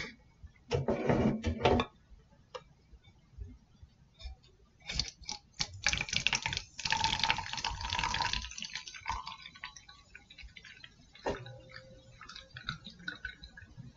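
Carbonated Bang energy drink poured from a can into a tall glass: liquid splashing and fizzing, loudest for a few seconds in the middle, then lighter crackling fizz as the foam settles. A short louder burst of noise about a second in.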